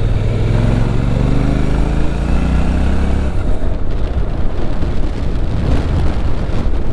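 Motorcycle engine accelerating, its pitch rising steadily for about three seconds before it drops away suddenly, leaving wind and road rush.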